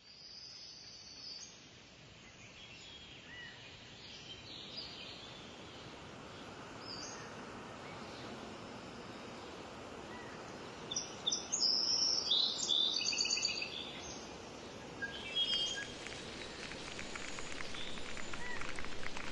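Forest ambience sound effect: birds chirping and singing over a steady background hiss, with a busier run of song about two thirds of the way through and the hiss swelling near the end.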